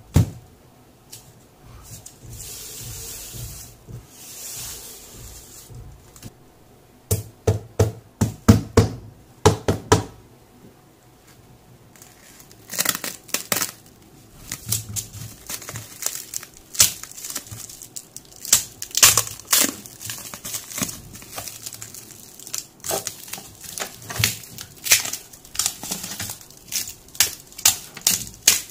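Plastic stretch wrap around a hard tool case crinkling and tearing as it is slit with a knife blade and pulled off by hand, a long run of crisp crackles and snaps through the second half. A quick cluster of sharp knocks comes about a third of the way in.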